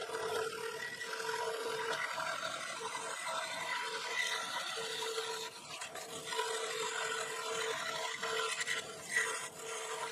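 DeWalt scroll saw running with its blade cutting through wood: a steady motor hum with a rasping cut over it.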